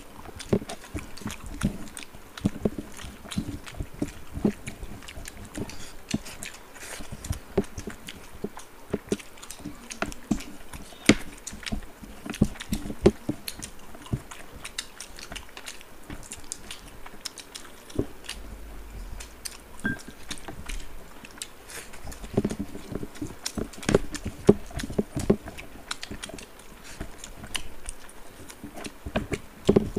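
Close-miked chewing and lip-smacking of two people eating rice and chicken curry by hand, with many irregular wet clicks and smacks, and fingers mixing the rice on their plates.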